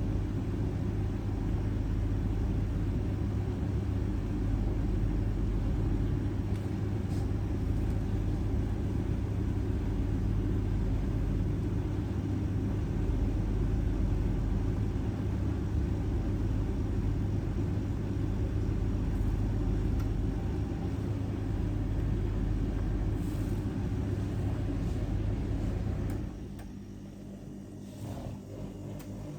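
Bush TDHP9KG2025 heat pump tumble dryer running a drying cycle: a steady low hum with the drum turning. Near the end the sound drops away for a couple of seconds, then picks up again.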